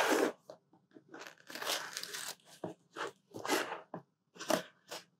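Cellophane wrap being slit with a small craft knife and torn off a cardboard box, in a run of short, irregular rips.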